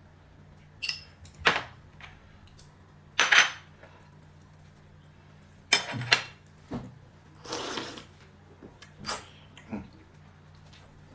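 Dishes and eating utensils clinking and knocking on a table: about eight short, sharp clatters at uneven intervals, the loudest a little after three seconds and around six seconds.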